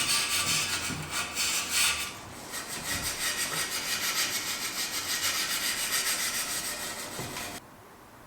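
Rapid back-and-forth hand scrubbing with an abrasive on a bicycle frame, making a steady, rasping rubbing sound. It stops abruptly near the end.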